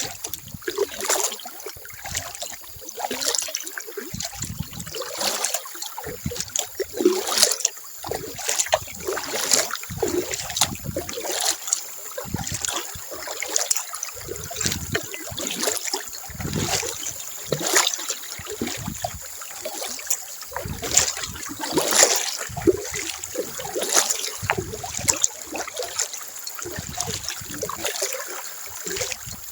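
Kayak paddling: the paddle dipping into the water, with water trickling and splashing off the blades in frequent, irregular strokes.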